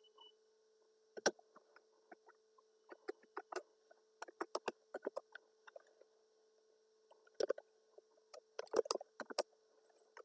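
Clicking of computer keyboard keys and a mouse while a spreadsheet formula is typed, in irregular clusters of sharp clicks, over a faint steady hum.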